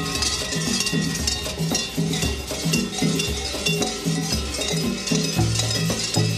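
Large cowbells worn by a group of kurents clanging continuously as they walk, a dense, uneven jangle of many bells at once.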